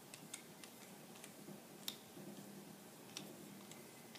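Faint, irregular small metal clicks of a screwdriver working the trigger group screw out of a Henry Big Boy rifle's receiver, with one sharper click about two seconds in.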